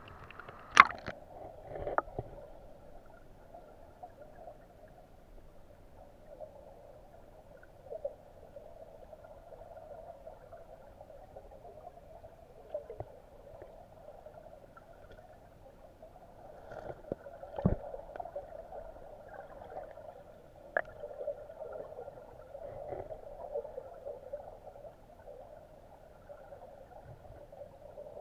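Muffled water sound heard through a submerged camera, a steady dull wash with a few sharp knocks, the loudest about a second in and another near the middle.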